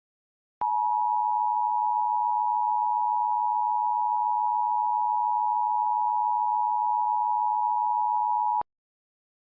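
Steady electronic tone just under 1 kHz with a faint crackle around it, switching on abruptly and holding at an even level for about eight seconds before cutting off.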